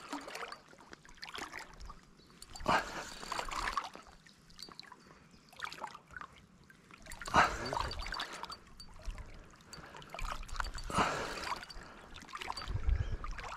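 Water splashing and trickling in three short bursts a few seconds apart, with a low thump near the end.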